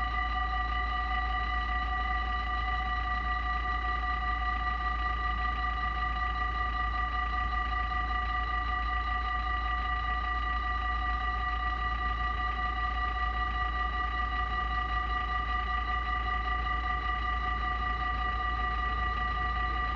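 Dutch level-crossing warning bells ringing continuously at a fast, steady rate, sounding for an approaching train while the barriers lower.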